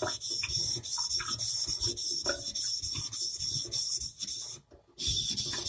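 Moritaka honesuki's bevel being stroked back and forth on a wet 1000-grit Naniwa Chosera whetstone, a rapid, even run of scraping strokes of steel on stone, with a brief break about four and a half seconds in.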